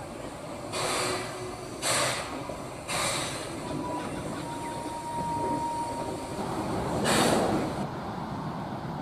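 NSW Z27 class steam locomotive 2705 starting off slowly: three hissing exhaust chuffs about a second apart, a thin steady squeal around the middle, and a longer, louder chuff near the end.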